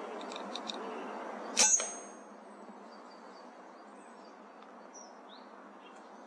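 A single sharp crack of an air rifle shot, with a brief high metallic ring after it, against faint outdoor background and a few distant bird chirps.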